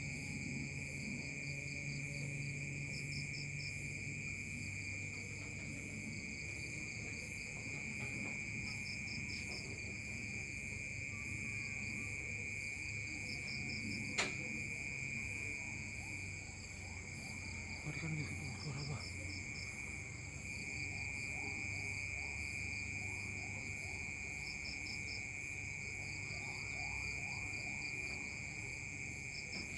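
Night insects chirping in a steady chorus, with short trills repeating every few seconds, over a continuous low rumble: the unexplained rumbling heard in the sky. A single sharp click comes about halfway through.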